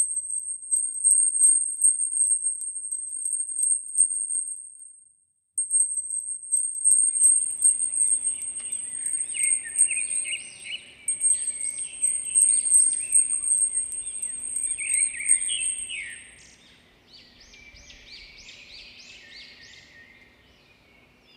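Birds chirping and twittering in quick repeated calls, starting about seven seconds in. Over the first part a thin, high, steady ringing tone with rapid crackling clicks runs on, breaks off briefly about five seconds in, and stops near the end.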